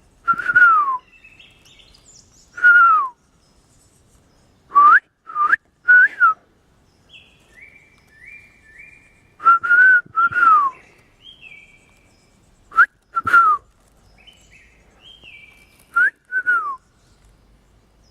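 A person whistles short notes that slide up or down, in groups of one to three, about a dozen in all. A bird answers between the whistles with fainter, higher, stepped whistled notes.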